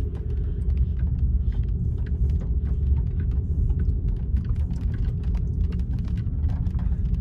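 Low rumble of a car's engine and tyres on wet road, heard from inside the cabin while driving slowly, with scattered light ticks of raindrops hitting the windshield and roof.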